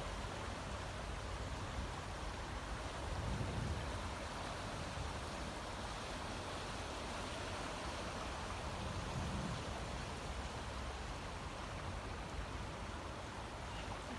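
Swollen, flooded river water rushing steadily, with two brief low rumbles about three and nine seconds in.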